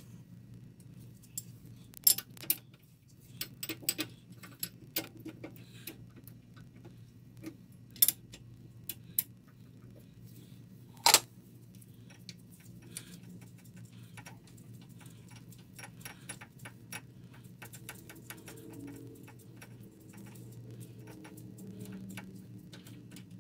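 Hand tools and steel parts clinking and clanking as a wrench undoes a nut and a gear is taken off its stud in an early-1950s Sheldon lathe's gear train. Sharp metal clinks come in irregular clusters, the loudest about 2, 8 and 11 seconds in, over a low steady hum.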